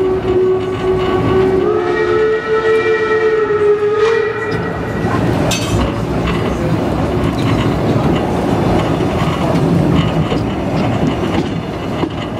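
Steam locomotive No 34's whistle sounding one long note that steps up in pitch partway and stops about four and a half seconds in, over the steady running noise of the train rolling along the track, with wheels clattering over the points.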